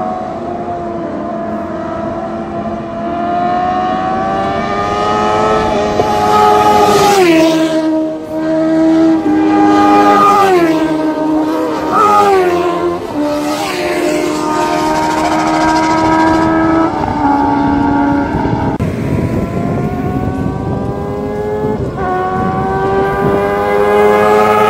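Honda CBR sport bikes' inline-four engines with loud aftermarket exhausts accelerating hard and passing by. The pitch climbs as the revs build, then drops sharply several times with the passes and gear changes, and climbs again near the end.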